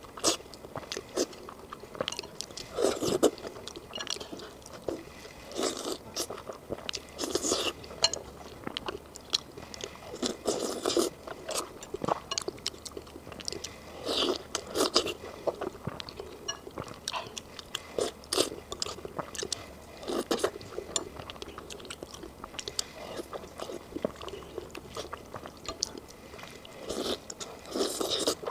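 Close-miked eating: a person chewing bites of tender pig brain in sauce, with short wet mouth sounds coming every second or so.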